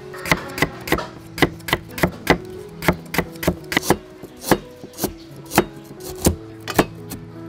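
Cleaver chopping on a round wooden chopping board, first through lemongrass, then slicing galangal root into rounds: irregular sharp knocks about two a second. Soft guitar music plays underneath.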